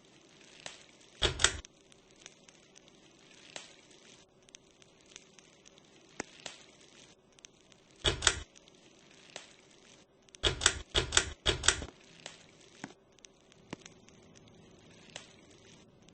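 Harbor Breeze Notus 52-inch ceiling fan running with a faint steady hum and scattered light ticks. Short loud bursts break in about a second in, again around the middle, and as a quick run of four a few seconds later.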